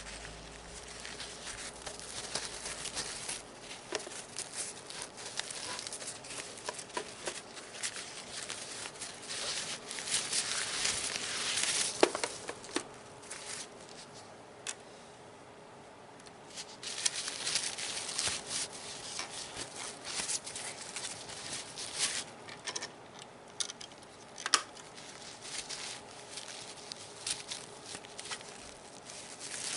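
Paper rubbing and wiping over the plastic body of a Nerf gun, a dense crinkly rustling with many small clicks and taps of plastic. The rustling eases off briefly in the middle and then picks up again, with a couple of sharper clicks standing out.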